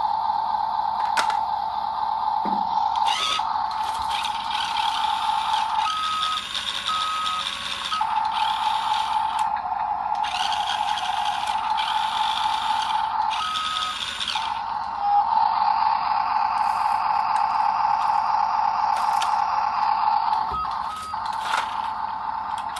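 Toy RC dump truck running with a steady electric whine from its motor and gears. Twice it switches to a slightly higher tone broken into short beeps.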